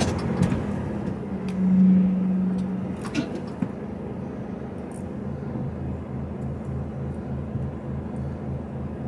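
HGV lorry's diesel engine running, heard inside the cab as a steady low hum. A louder steady tone joins it briefly about two seconds in, and from about five seconds on the engine note pulses in an even rhythm.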